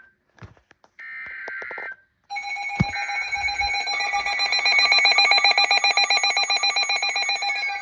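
Weather radio receivers going off for an alert. A harsh buzzing SAME digital data burst about a second in is followed, from about two seconds in, by loud electronic alarm beeping, rapidly pulsed, with several steady tones layered together. Near the end a falling tone joins in. The alert signals an incoming tornado warning.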